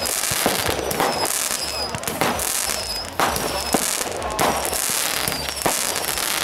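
Fireworks going off: a rapid series of bangs as shots fire and burst overhead, with crackling between them and several short, high whistles.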